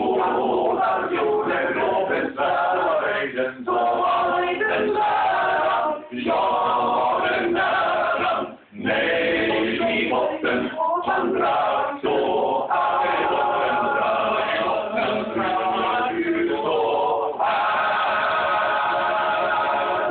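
Men's choir singing a song in Swedish, several voices in chords, ending on a long held chord near the end.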